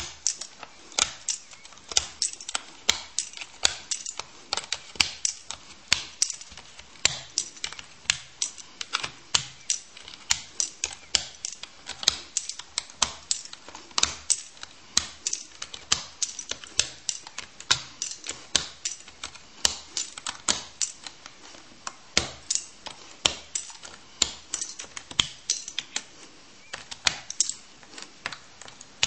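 Keys of an Apple keyboard clicking in a quick, uneven stream of sharp clicks, about three a second.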